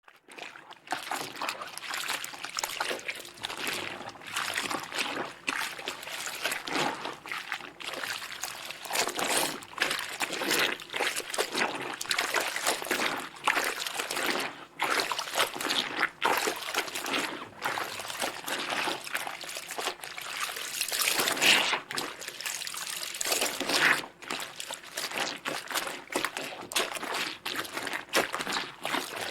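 Water splashing and sloshing in a bathtub, a continuous run of irregular splashes.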